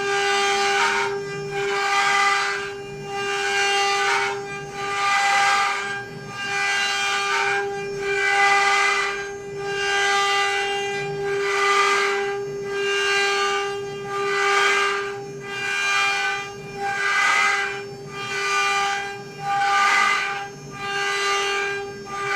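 CNC router spindle running at a steady high pitch while the bit cuts, the cutting noise swelling and fading about once a second as the tool sweeps back and forth.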